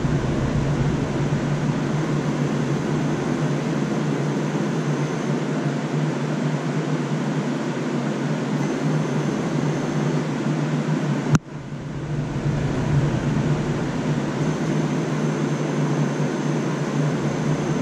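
Steady mechanical hum with no rhythm. It breaks off abruptly about eleven seconds in and comes back.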